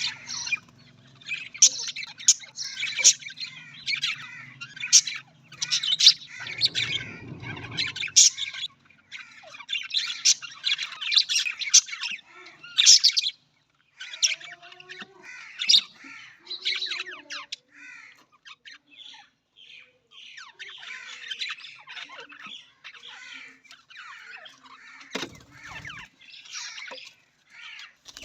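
Budgerigars chattering: a busy stream of quick warbling chirps and squawks with short gaps. A brief low rumble sounds underneath about seven seconds in.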